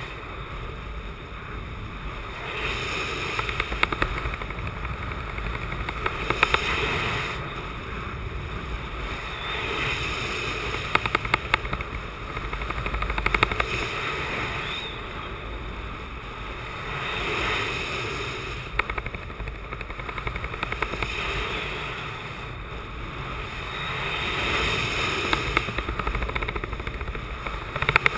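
Wind rushing over the camera microphone during unpowered speed-wing flight, swelling and easing every few seconds with short crackling gusts.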